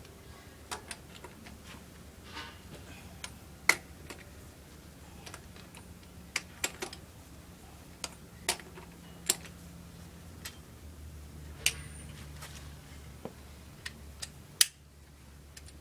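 Scattered sharp clicks and knocks at irregular intervals, like tools and hardware being handled, over a faint low steady hum.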